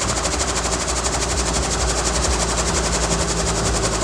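Helicopter in flight: steady engine and turbine noise with the rapid, even chop of the rotor blades.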